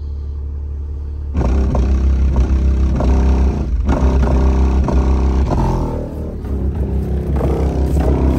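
Unmounted Hi Yanka 10-inch subwoofer in free air, driven hard with bass-heavy music and peaking around 2,000 watts. A deep steady bass runs throughout, and the full beat comes in suddenly about a second and a half in.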